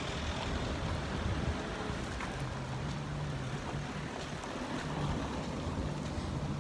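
A steady wash of noise with a low motor hum that comes in about two and a half seconds in and comes and goes.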